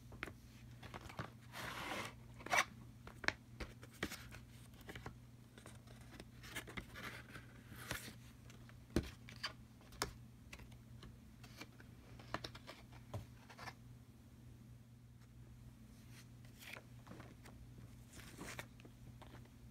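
Rolls of paper wash-away quilting tape being handled and stacked by hand, with scattered light clicks, taps and short rustling scrapes, over a faint steady low hum.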